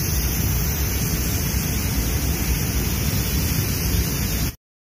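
Steady hiss of a gravity-feed spray gun's compressed air atomising paint onto a car door. The hiss cuts off abruptly about four and a half seconds in.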